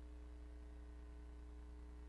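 Faint, steady low hum, with a few higher steady tones above it and no other sound.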